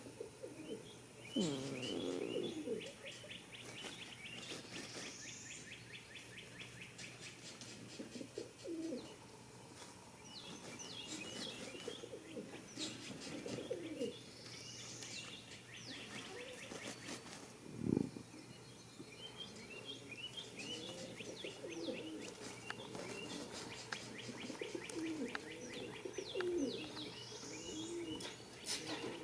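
Songbirds singing a repeated high phrase in three bouts, over a goat's low, wavering snoring. A short loud noise stands out about eighteen seconds in.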